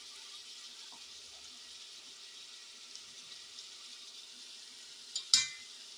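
Potatoes, tomatoes and spices sizzling gently in oil in a metal pot, a steady soft hiss. About five seconds in, a spoon clinks sharply against the pot once.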